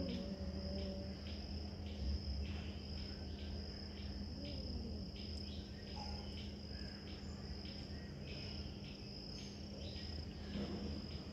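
Insects chirping: a steady high trill with short chirps about twice a second, over a low steady hum. A cat's yowl trails off in the first second.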